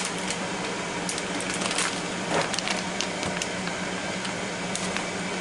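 Ninja Foodi running in air crisp mode, a steady fan hum, with scattered crinkles and clicks from a plastic snack bag being handled.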